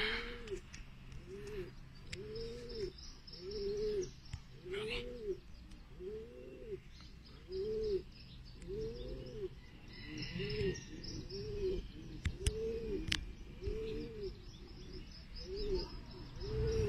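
Domestic pigeon cooing: a steady string of short coos, each rising and falling, about one a second, with faint high chirping of small birds over it.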